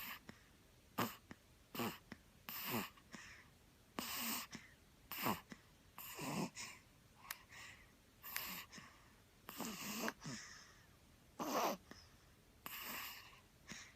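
A sleeping young child snoring, with short wheezy breaths coming irregularly about once a second, several of them sliding down in pitch.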